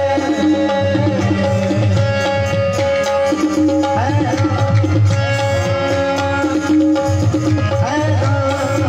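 Qawwali music: harmonium melody over a held drone, with a steady tabla rhythm underneath and curving melodic phrases rising about midway and near the end.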